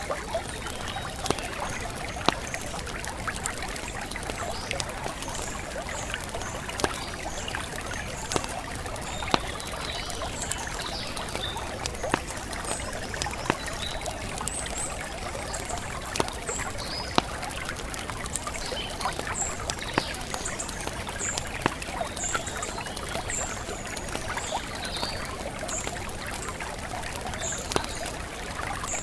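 Steady trickling, running water with short, high bird chirps scattered through it and occasional sharp clicks.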